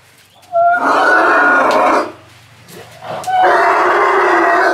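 Young elephants calling: two loud, rough calls of about a second and a half each, the first about half a second in and the second just after three seconds.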